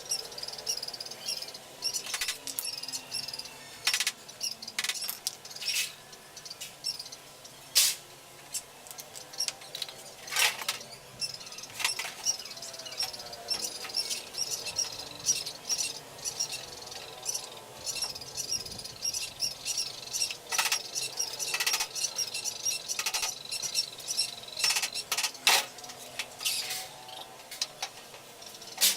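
Irregular sharp clicks and knocks of parts and tools being handled during washing machine repair, a few of them louder, around 8 seconds in and again near 25 seconds. Behind them runs a steady, high, wavering chirping.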